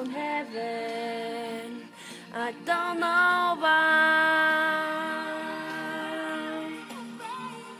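A person singing a slow melody in a sustained voice, a few short phrases and then one long held note that fades out near the end.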